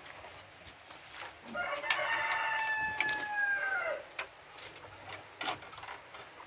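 A rooster crows once: one long call of about two and a half seconds that drops in pitch at the end. A few faint knocks follow.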